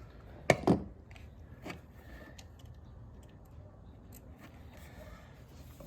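Two sharp snaps about a fifth of a second apart, then a fainter one a second later: a hand wiring tool closing on electrical wire.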